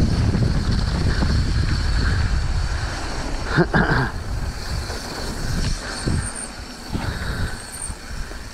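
Wind buffeting the microphone over the rattle and knocks of a mountain bike riding a rough, rocky trail. There is a brief louder sound about three and a half seconds in, and the noise eases off over the second half.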